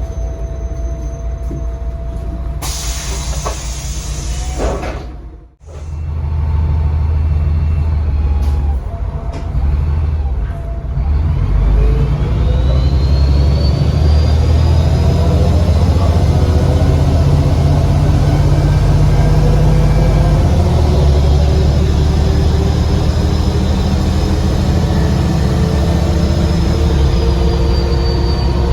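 Diesel bus engine heard from on board: a loud burst of air hiss, then the engine pulls away and accelerates, rising in pitch, with a loud high turbocharger whistle that climbs and then holds.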